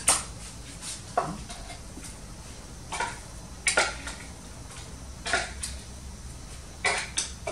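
A table knife scraping and knocking inside a food processor bowl to clear out ground chicken-and-greens filling: about seven short, separate clinks and scrapes.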